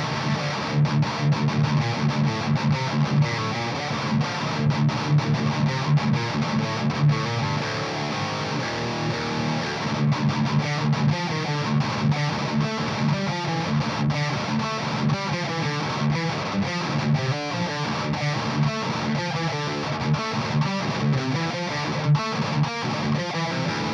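Distorted electric guitar in D standard tuning playing rhythmic, chugging metal riffs through a Splawn Quickrod 100 valve amp, miked from a 1x12 cabinet with Celestion Greenback speakers.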